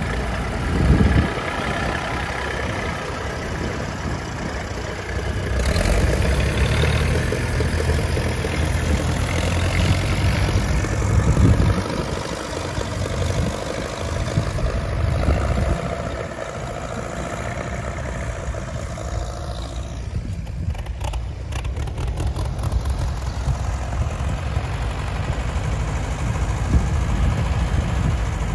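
Vintage tractor engines running as tractors drive past in turn, among them a Massey Ferguson 135 and a grey Ferguson TE20, their engine note swelling and fading as they pass.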